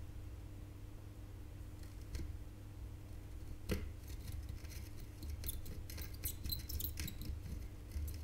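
Light clicks and scrapes of small hand tools working solder wick and iron on a circuit board, with one sharper click a little under halfway and a run of quick ticks later on, over a steady low hum.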